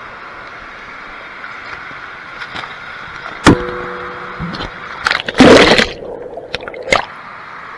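Water rushing down a fibreglass water slide past a head-mounted action camera, with a sharp knock about three and a half seconds in. A little after five seconds comes a big splash as the rider plunges into the pool, the sound goes muffled underwater, and there is a last short splash near seven seconds.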